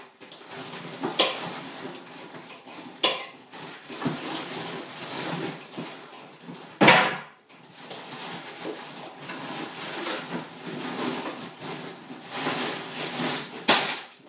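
Dishes and cutlery clattering as they are handled on a kitchen worktop, with sharper knocks about a second in, at three seconds, at seven seconds (the loudest) and again near the end.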